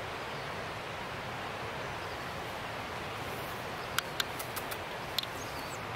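Steady outdoor rushing noise, with a quick run of sharp clicks about four seconds in and a few faint high chirps near the end.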